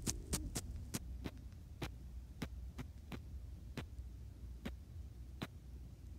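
Sharp clicks from navigating a TV's on-screen keyboard with a remote while typing a search, about a dozen, quick at first and then slowing to roughly one a second, over a steady low hum.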